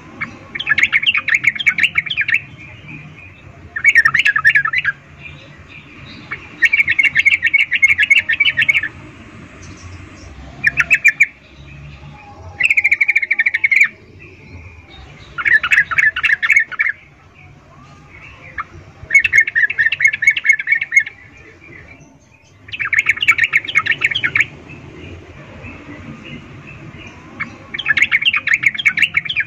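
Female yellow-vented bulbul giving its chattering breeding call ('ngecuplik'): about nine bursts of rapid repeated notes, each one to two seconds long, a few seconds apart. It is the call a hen in breeding condition uses to draw a male.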